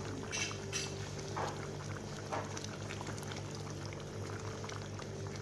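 A pot of meat curry bubbling as it simmers on a gas stove, with many small pops and crackles over a steady low hum.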